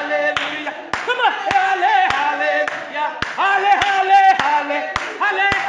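Congregation singing praise with held notes, over steady rhythmic hand clapping of a little under two claps a second.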